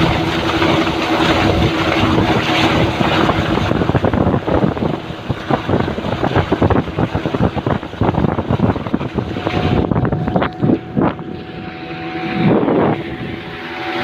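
A boat's motor running with a steady hum under loud wind buffeting and water noise. The engine hum fades after a few seconds and comes back near the end.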